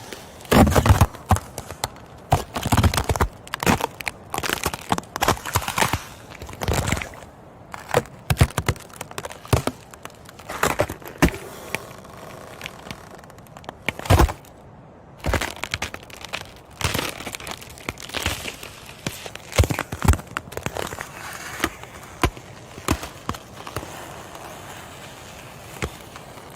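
Ice cracking and crunching: irregular clusters of sharp cracks and crackles, some much louder than others, with short quieter gaps between them.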